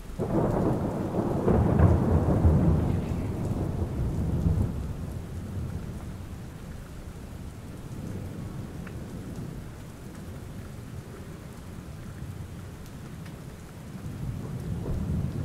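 Steady rain with a long roll of thunder that rumbles up right at the start, peaks about two seconds in and dies away over several seconds. A smaller rumble swells again near the end.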